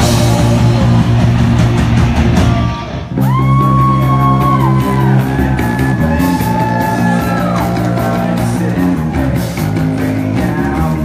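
Live rock band playing loud, electric guitar and bass with singing and shouting. The music dips briefly about three seconds in, then comes back with long held notes that bend in pitch.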